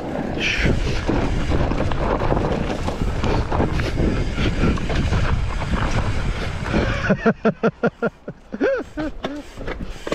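Wind buffeting the microphone and mountain bike tyres rumbling over a dirt trail at speed. About seven seconds in the rush drops away, and a run of short pitched sounds follows, three or four a second.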